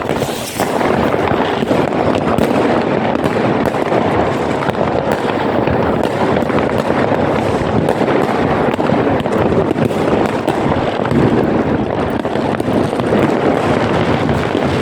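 Many fireworks and firecrackers going off at once, blending into a steady, dense crackle of countless small overlapping bangs.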